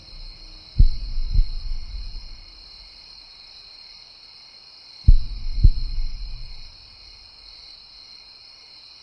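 A deep double thump, like a slow heartbeat, sounds twice, about four seconds apart, over steady chirping of night insects.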